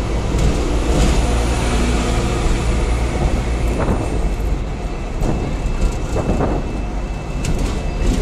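Hong Kong electric double-decker tram running along its tracks, heard from on board: a steady low rumble of wheels and running gear with a thin, steady high whine over it.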